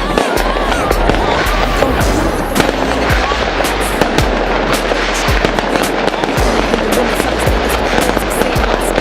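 Fireworks show: a rapid, continuous run of bangs and crackling bursts, with music playing underneath.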